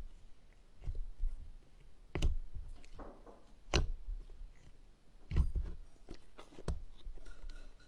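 Slime being squeezed and poked close to the microphone, making irregular sticky clicks and small pops, a few of them louder than the rest.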